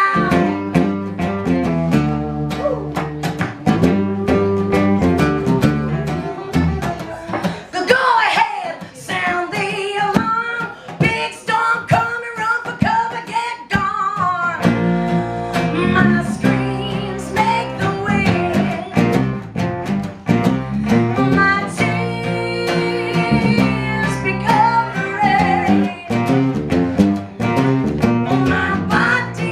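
Acoustic band playing live: acoustic guitar with a bass line. The low end drops out for about seven seconds in the middle, while gliding melodic lines carry on above.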